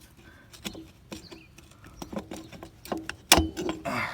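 Irregular clicks and knocks of tools and parts being handled during motorcycle rear-wheel removal, with one louder knock about three seconds in.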